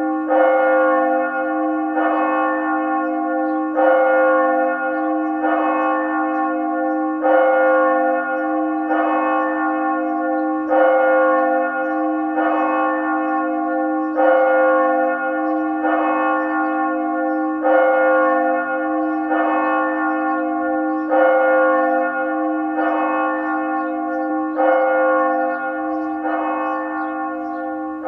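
Church bell tolling steadily: regular strokes a little under two seconds apart, each one ringing on under the next.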